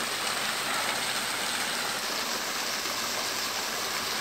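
Spring water cascading down an icicle-covered rock ledge: a steady splashing hiss of falling water.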